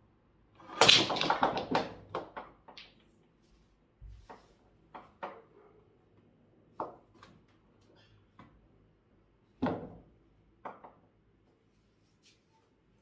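Break shot on a mini pool table: the cue strikes the cue ball and the 10-ball rack scatters in a quick burst of ball-on-ball clicks lasting about two seconds. Scattered single knocks follow over the next several seconds, one loud one near the end.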